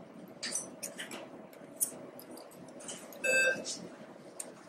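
Plastic screw-cap sample tubes of stool and sample reagent being shaken and handled by gloved hands, giving faint swishes and light knocks. A short electronic beep sounds about three seconds in.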